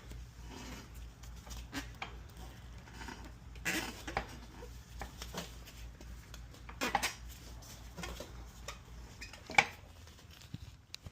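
Scattered metal clinks and knocks of wheel parts being handled and fitted while refitting a motorcycle wheel, the sharpest about four, seven and nine and a half seconds in, over a low steady hum.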